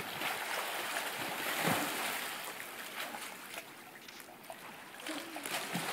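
Pool water splashing and churning as two swimmers kick and stroke through it, loudest about a second and a half in, then easing off.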